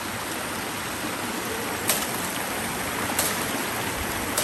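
Steady rush of a river stream, with three sharp cracks of dry bamboo being pulled and snapped, the first about two seconds in and then about one every second and a bit.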